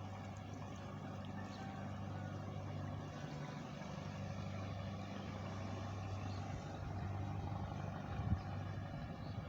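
Boat engine running steadily with a low hum, and a short thump about eight seconds in.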